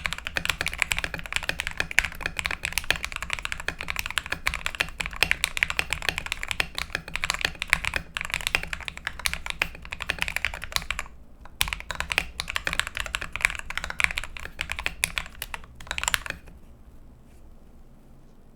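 Fast, continuous typing on a GamaKay LK67 mechanical keyboard with lubed Akko Matcha linear switches, XDA keycaps, a tape mod and foam in the case, giving a high-pitched clack. There is a short pause about eleven seconds in, and the typing stops about two seconds before the end.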